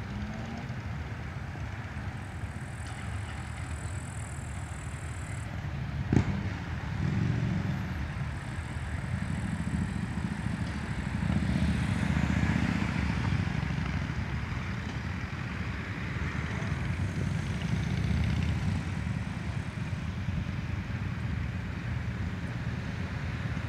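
Road traffic: cars and motorcycles running and passing, a low engine rumble that swells and fades several times. A single sharp click comes about six seconds in.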